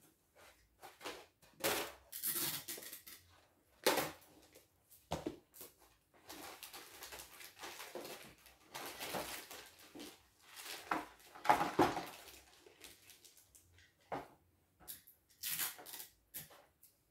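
Christmas wrapping paper rustling and crinkling in irregular bursts of crackles and tears as presents are handled and wrapped, loudest about eleven and a half seconds in.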